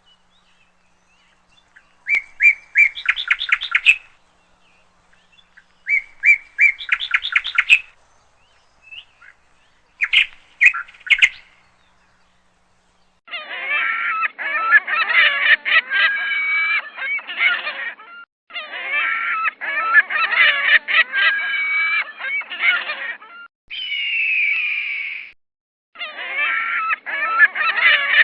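Birds calling. Three short bursts of quick repeated notes come in the first half, then longer, dense stretches of calling that begin and end abruptly.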